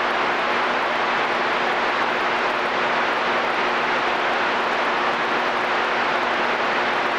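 CB radio receiver static: a steady loud hiss with a faint low hum underneath, heard between transmissions.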